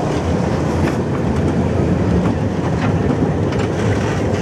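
Open wooden cars of the Sóller electric tram rolling past close by: a steady rumble of steel wheels on the rails, with a few clicks from the track.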